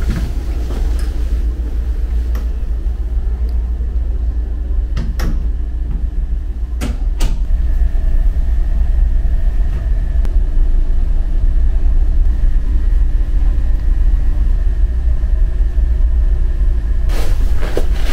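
Steady low rumble and hum of a ferry's machinery heard inside a cabin, with a few light knocks and clicks, two in the middle and several near the end.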